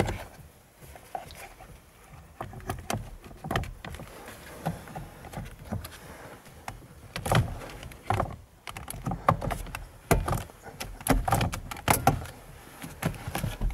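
Irregular clicks, taps and knocks of parts being handled and fitted on a VW Golf 7 steering wheel during reassembly.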